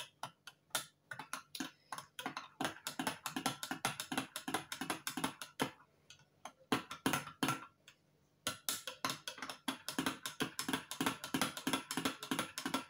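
A spoon stirring gravy in a jug, a fast, irregular run of clicks against the sides, with a short lull about six seconds in.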